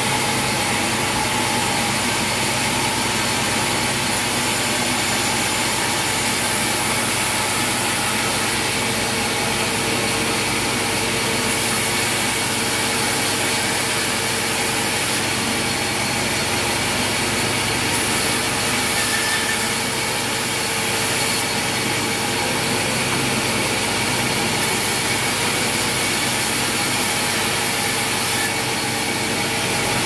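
Large log band sawmill running steadily, a continuous machine drone with the band saw cutting through timber.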